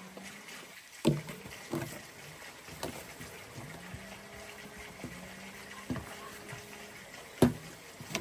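Scattered knocks and taps of hands working jute twine on a wooden tabletop, the sharpest about a second in and again near the end. Under them a faint low hum slides up in pitch and then holds steady, twice.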